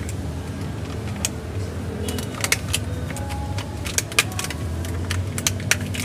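Clear plastic clamshell food box crackling and clicking as it is pressed shut, about a dozen sharp irregular clicks, over a steady low hum.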